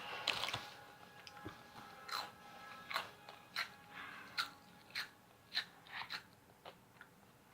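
Cheetos being chewed with the mouth close: a crisp crunch about every half second to second, growing fainter toward the end as the mouthful breaks down.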